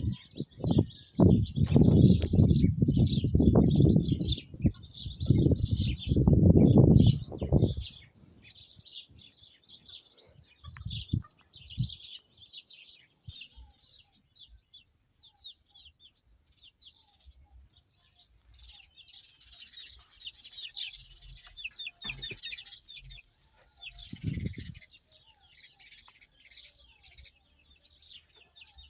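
Many small birds chirping and twittering in a steady chatter. Loud, low gusts of wind buffet the microphone during the first eight seconds and return briefly twice near the end.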